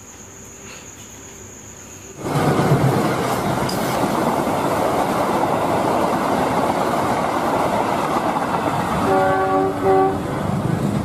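Passenger train passing close by at a level crossing. The noise of the coaches on the rails starts suddenly about two seconds in and stays steady. Near the end the train horn gives two short blasts, one right after the other.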